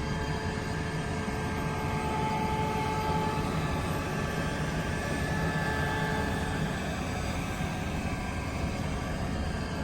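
A vehicle's engine running steadily as it drives along a road: a continuous low drone with a steady whine over it.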